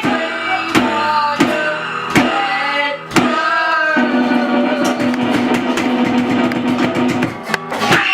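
A rock song with a singing voice over guitar and a steady drum beat, with a quick drum fill near the end.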